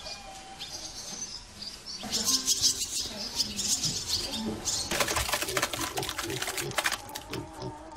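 Small birds fluttering their wings and chirping. Later a rapid rustling that fits grain being poured from a basket.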